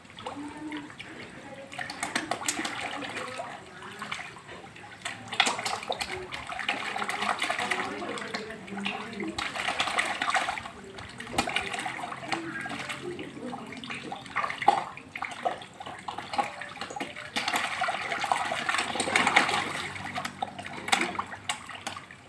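A swarm of catfish thrashing and splashing at the water's surface as they feed on a chunk of grilled chicken held in the water, the churning coming in repeated surges with sharp slaps.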